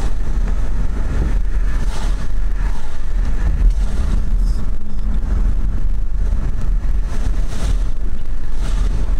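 Car driving, a loud steady low rumble of road and wind noise with a few brief swells of hiss.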